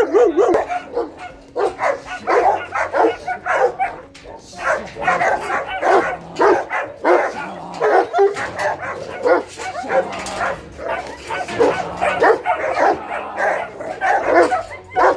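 Several kennel dogs barking without a break, the barks coming fast and overlapping one another.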